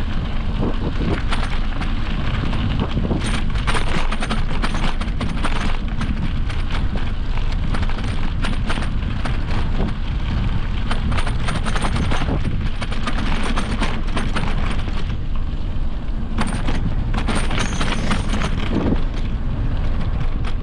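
An electric mountain bike jolting over a dirt trail, with wind buffeting the microphone: a steady low rumble with scattered knocks and rattles.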